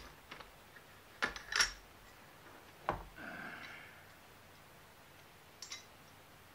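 A few sharp metallic clicks and clacks from a Blackheart B10B AKM rifle and its parts being handled as it is laid down in its foam-lined case: two close together about a second and a half in, another near three seconds, and a faint one near the end.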